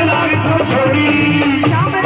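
Live Hindi devotional bhajan: a woman singing over drum and instrumental accompaniment, holding one long note in the second half.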